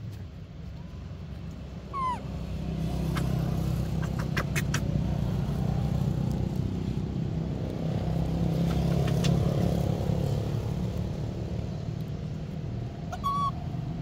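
A low engine rumble from a vehicle, swelling and then easing off as if passing by, with a brief high squeak about two seconds in.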